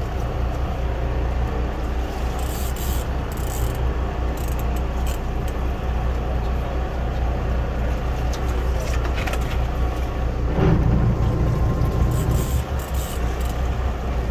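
Boat engine idling steadily while a hooked bull shark thrashes beside the boat, with water splashing now and then and a louder splash about ten and a half seconds in.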